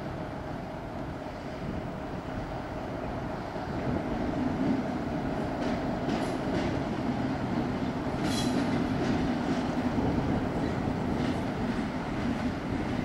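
Class 60 diesel locomotive with its eight-cylinder Mirrlees engine, moving slowly past with a steady drone. A few short high squeals from the wheels come through, the clearest about eight seconds in.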